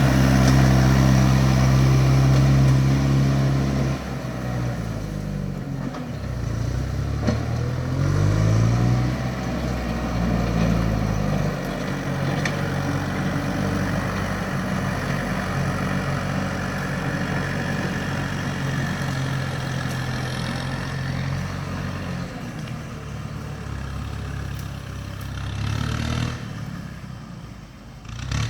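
Kubota MU5702 tractor's four-cylinder diesel engine running under way, its note rising and falling as engine speed changes several seconds in, then settling to a steady run.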